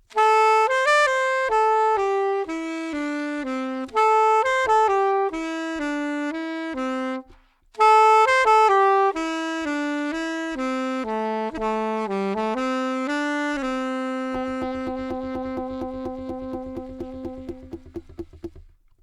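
Saxophone playing a slow melody in two phrases with a short break between them, ending on a long held low note that fades out. A low, regular rhythmic pulse comes in beneath the held note.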